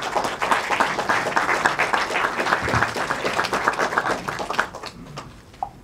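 Audience applauding, many hands clapping at once; the clapping thins out and stops shortly before the end.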